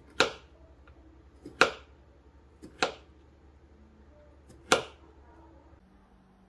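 A kitchen knife slicing a peeled kiwi into rounds, knocking sharply on the cutting board four times, each stroke a second or more apart.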